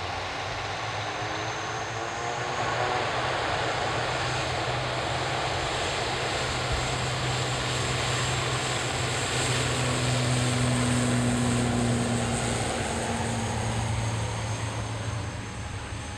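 Turboprop airliner taking off, its engines at takeoff power with a steady propeller drone. It grows louder as the plane rolls past and fades near the end.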